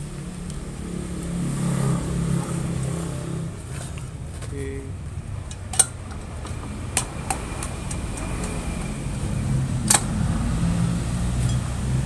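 A few sharp metal clicks and taps as the cylinder barrel of a Yamaha V80 two-stroke engine is worked over the piston and down the crankcase studs, over a steady low hum. The two loudest clicks come about halfway through and near the end.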